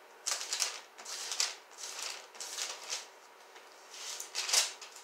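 Pages of a Bible being flipped by hand in search of a passage: a series of papery rustles and page turns, a few short flurries spread across the few seconds.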